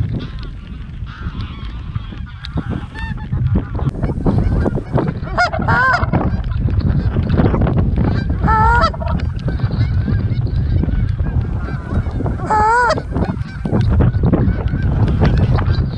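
A flock of geese honking in flight, many calls overlapping, with a few louder wavering calls about six, nine and thirteen seconds in.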